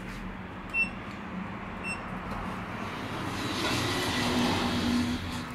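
2020 Schindler 3300 elevator: two short electronic beeps about a second apart as car-panel buttons are pressed, then the car's sliding doors run on their motor with a steady hum, closing before the car moves off.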